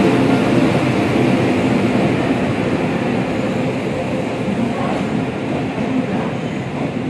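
Express passenger train's coaches rolling past close by: a steady rumble and rattle of steel wheels on the rails, slowly easing off.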